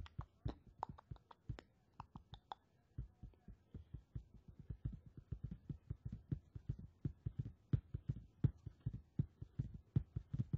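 Soft, irregular tapping and thumping, about three a second, with a few sharper clicks in the first two and a half seconds.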